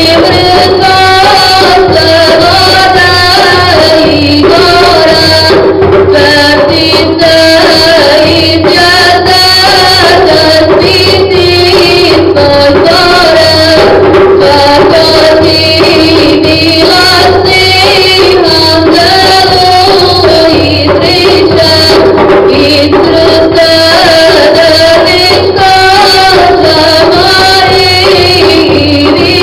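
Mixed choir of young men and women singing an ilahija, a Bosnian Islamic devotional hymn, in one continuous flowing melody.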